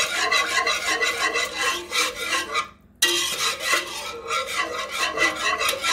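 A wire whisk scraping quickly around a metal pot as it whisks a thickening milk and cream sauce, in rapid, even strokes. It stops briefly about three seconds in, then goes on.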